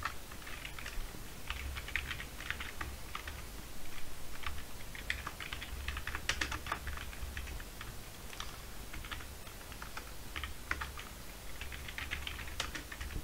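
Typing on a computer keyboard: keys clicking in quick irregular runs with short pauses between them.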